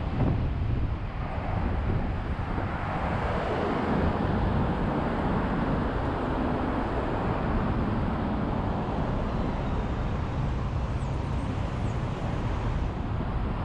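Steady tyre and road noise from a car driving on rain-wet streets, swelling a little a few seconds in.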